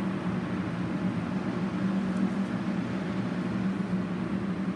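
Barn ventilation exhaust fans running: a steady low hum over an even rush of moving air.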